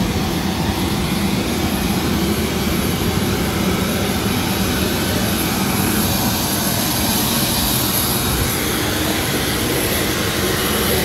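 Aircraft turbine engine running, a steady loud roar with a high thin whine that grows stronger about halfway through.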